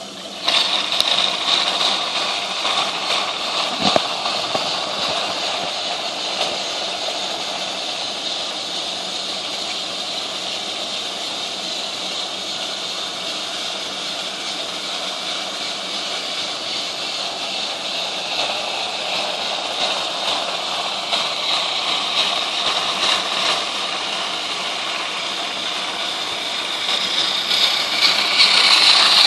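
Battery-powered toy trains running on plastic track: a steady whirring of small motors and wheels, growing louder near the end as one comes close. A single click about four seconds in.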